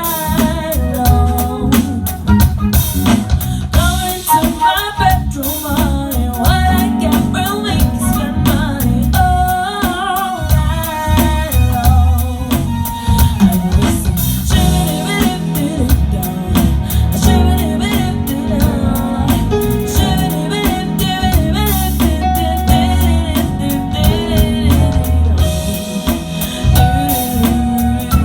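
Live band playing an R&B song at a soundcheck: a singer over drums, with a heavy bass guitar line.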